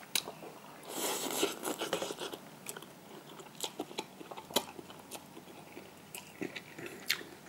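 Person chewing a mouthful of instant cup noodles, with a denser run of chewing and smacking about a second in, then scattered soft mouth clicks.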